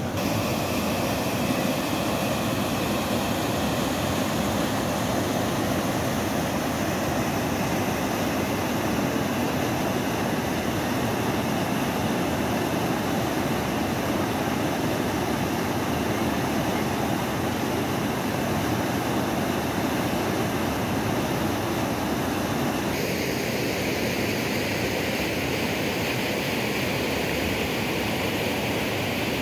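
Muddy floodwater rushing down a concrete-lined wadi channel in spate after thunderstorms, a steady wash of water noise. About three-quarters of the way through the sound shifts brighter and hissier as the view changes to another stretch of the channel.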